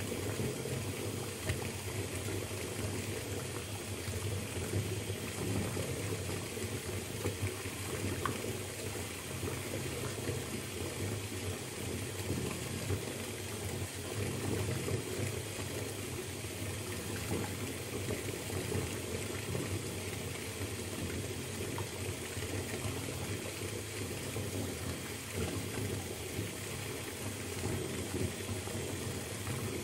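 Bathtub filling from a running tap: a steady, even rush of water pouring into the tub.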